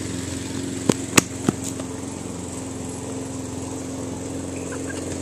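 A small engine drones steadily. About a second in, three sharp knocks come in quick succession, roughly a third of a second apart.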